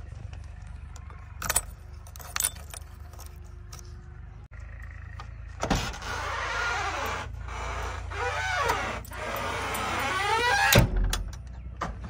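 A key and door lock on a JCB 3DX backhoe loader's cab door: two sharp clicks, then about five seconds of loud scraping and creaking as the door is worked, ending in a heavy thump.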